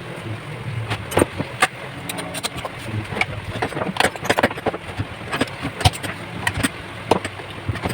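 Irregular crackling and popping of a stick-welding arc from a homemade inverter welder during a test weld, over a steady low hum.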